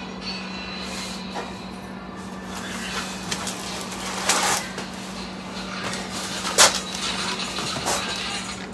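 A tall cardboard shipping box being tipped and walked through a doorway: cardboard scraping and bumping against the door frame and floor, with a sharp knock about six and a half seconds in. A steady low hum runs underneath.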